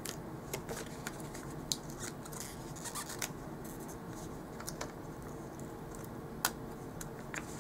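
Paper sticker sheet being flexed and picked at with fingernails to peel a sticker free: light crinkling and small scattered clicks, with sharper clicks about one and a half seconds in and again near six and a half seconds.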